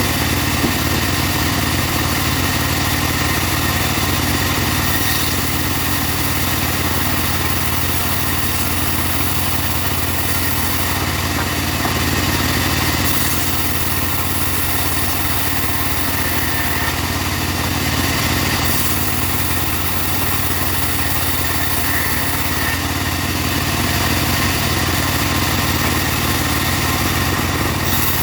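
A portable engine-driven bandsaw mill running steadily as it saws teak logs, with a constant engine drone and a high hiss from the blade that shifts in strength every few seconds.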